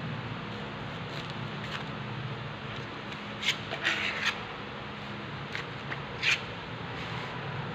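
A few short scraping rubs, clustered in the middle and loudest once near the end, over a steady low hum.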